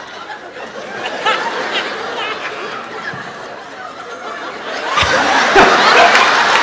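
Audience laughing throughout a comedy routine, the laughter swelling louder about five seconds in.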